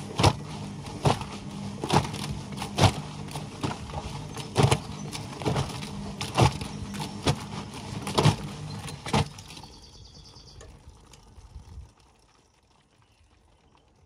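Whirlpool front-loading washing machine tumbling a soapy wash with its door open: a motor hum under wet laundry slapping and splashing down in the drum about once a second. About ten seconds in the drum winds down, and it has stopped by about twelve seconds in.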